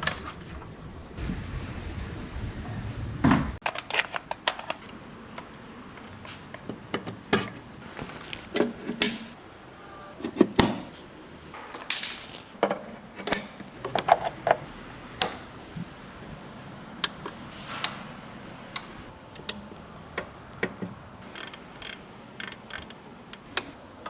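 Irregular sharp clicks and light clattering, like small hard objects being handled, with a low rumble that cuts off about three and a half seconds in.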